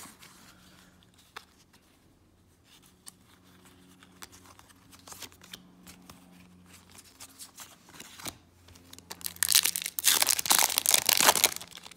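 Foil wrapper of a Yu-Gi-Oh! Rising Rampage booster pack being torn open and crinkled: a loud burst of tearing for about the last two seconds, after several seconds of quiet card handling with a few light taps.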